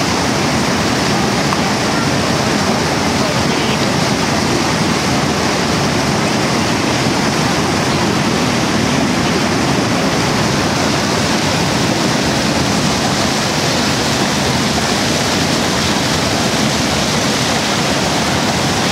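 Steady, loud roar of rushing water from Niagara Falls and the rapids above it.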